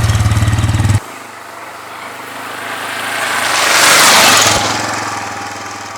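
A motor vehicle's engine runs loudly and cuts off abruptly about a second in. A quieter engine noise follows, swelling to a peak about four seconds in and fading again, like a vehicle passing by.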